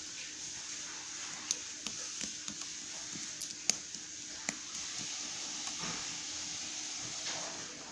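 A series of irregular sharp clicks or taps, about seven of them in the first half, the loudest a little under four seconds in, over a steady hiss.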